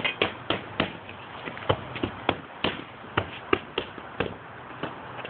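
Boxing punches landing on pads or bags: quick, irregular smacks, several a second, often in close pairs.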